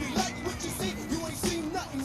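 Hip-hop music with a steady beat and a melodic vocal or instrument line.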